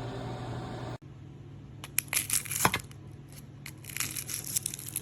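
Steady running noise of an air fryer toaster oven's fan, which stops abruptly about a second in. It is followed by two clusters of crinkling, crushing sounds of something being handled.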